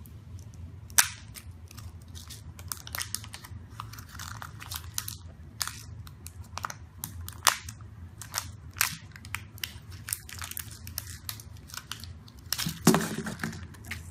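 A small plastic toy capsule is twisted and pried open by hand, making irregular clicks, crackles and crinkles, with sharp snaps about a second in and again around seven seconds in. A louder clatter follows near the end.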